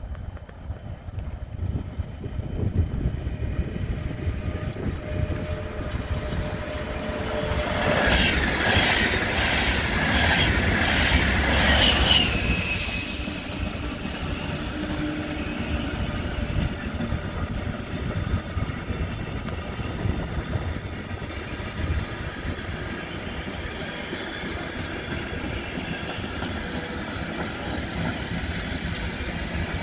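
Electric-hauled container freight train passing: a rhythmic clatter of wheels, loudest between about 8 and 12 seconds in, then the container flat wagons keep rolling past with a steady running noise.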